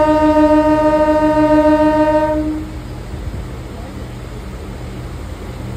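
Train horn sounding one long steady note that stops about two and a half seconds in, over the steady low rumble of the train running.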